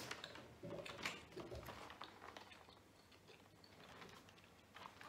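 Faint, scattered soft clicks and rustles of mouth sounds from chewing chocolate, and of hands handling a cardboard advent calendar box.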